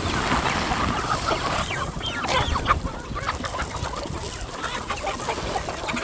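A flock of chickens clucking, many short overlapping calls.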